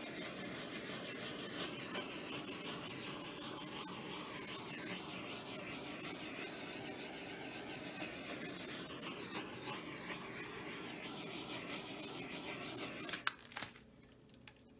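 Handheld gas torch hissing steadily, used over wet acrylic pour paint to bring up cells, then shut off with a click about thirteen seconds in.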